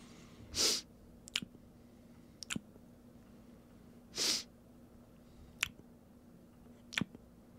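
Two short, sharp breaths through the nose close to a microphone, about four seconds apart, with a few faint clicks between them over a steady low hum.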